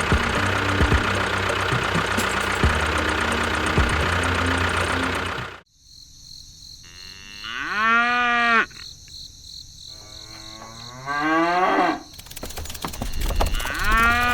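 A small engine running with a steady knocking rattle, cut off suddenly about five and a half seconds in. Then a cow moos two or three times, long drawn-out calls, over a high steady whine.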